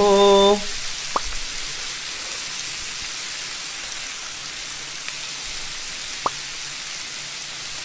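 Thin-sliced beef brisket sizzling on a hot electric griddle: a steady hiss, with a couple of faint clicks about a second in and again near the end.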